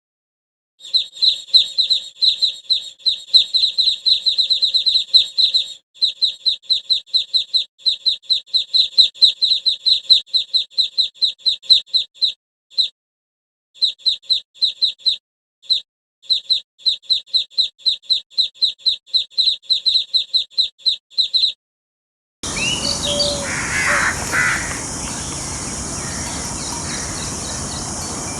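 A bird calling in fast runs of short, high chirps, about eight a second, broken by brief pauses. A little over two-thirds of the way through it cuts off, giving way to an outdoor recording with other birds calling over a steady hiss.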